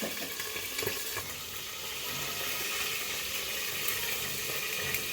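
Marinated chicken wings shallow-frying in hot oil: a steady sizzle with the oil spattering, and a few faint crackles.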